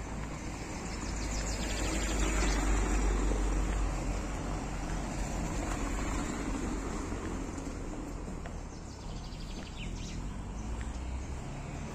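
A motor vehicle passing on the road, growing louder to a peak a couple of seconds in and then slowly fading. A few faint bird chirps come near the end.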